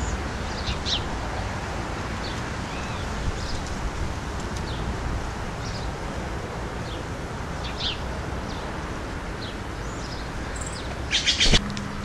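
Short, faint bird chirps scattered every second or so over a steady background hiss, with a louder burst of quick, sharp notes about a second before the end.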